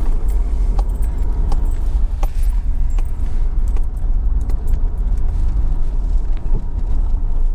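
A vehicle driving, heard from inside the cabin: a steady low rumble of engine and tyres on the road, with scattered light clinks and rattles from loose items.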